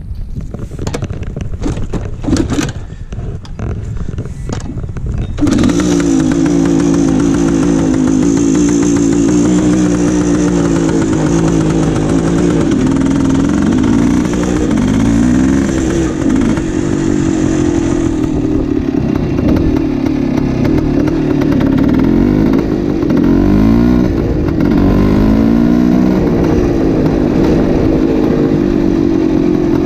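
1972 Yamaha RT2 360's two-stroke single-cylinder engine running unevenly with sharp pops for about five seconds, then pulling away loudly. It rises and falls in pitch again and again as the bike accelerates and eases off while riding.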